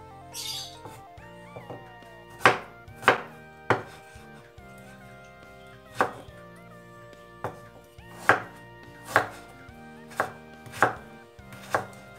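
Kitchen knife chopping ginger and turmeric root on a wooden cutting board: about ten sharp knocks at an uneven pace, over soft background music.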